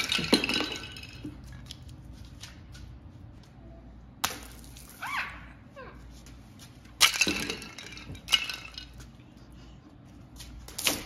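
Water balloons bursting and splashing into a shallow puddle, about five sharp pops a few seconds apart, each followed by a short spray of water.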